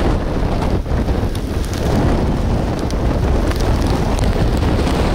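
Strong storm wind buffeting the microphone with rain: a loud, steady rush, heaviest in the low end, with faint scattered ticks.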